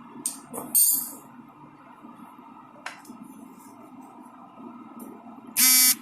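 A few light clinks of glass and a short scrape, then near the end a loud electronic buzzer sounds once for about half a second.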